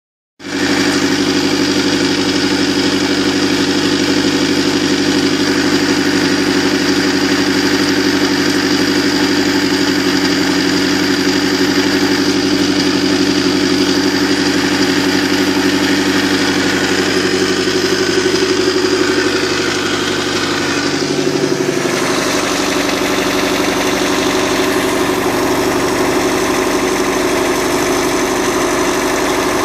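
OMC 3.0 four-cylinder sterndrive boat engine idling steadily out of the water, its outdrive fed by a garden hose. The note shifts slightly about two-thirds of the way through.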